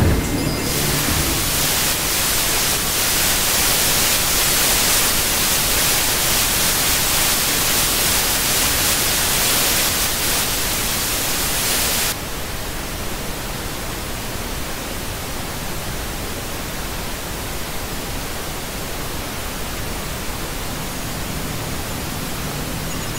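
Television static: a steady, even hiss with strong treble that drops suddenly to a softer, duller hiss about twelve seconds in.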